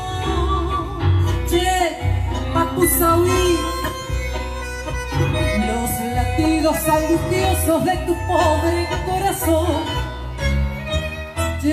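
Live tango played by a sextet: violin, double bass and keyboard, with a woman singing over them.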